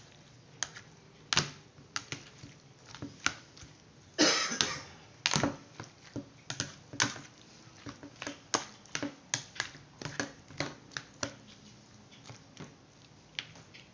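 Plastic spoon stirring chopped eggplant and tomato salad in a plastic dish, knocking and scraping against the dish in irregular sharp clicks, with a longer scrape about four seconds in.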